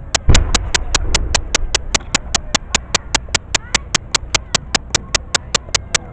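Aerial firework shell fired from its mortar: one deep boom about a third of a second in, with a rumble fading over the next second or so. Under it, a steady clicking at about five a second.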